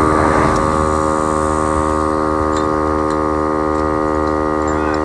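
Milwaukee air compressor running steadily with an even, pitched hum, inflating a spare tire to a programmed 60 psi.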